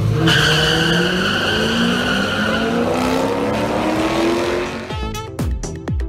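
Two cars launching side by side down a drag strip, their engines climbing steadily in pitch as they accelerate, with a high squeal at the launch. About five seconds in, music with sharp hits and falling sweeps cuts in.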